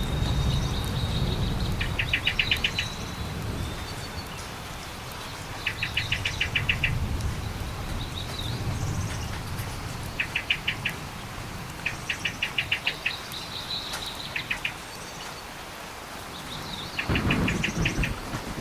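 Bird calls: short, rapid trills of about ten clipped notes each, repeated every few seconds, with thin high whistles between them. A low rumble swells and fades underneath.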